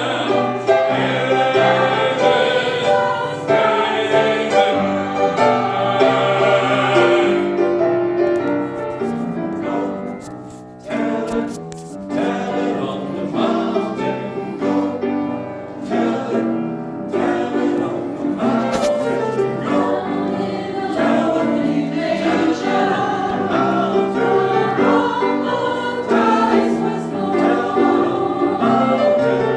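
A church choir singing in parts, a full choral passage that eases off briefly about ten seconds in before the voices come back in strongly.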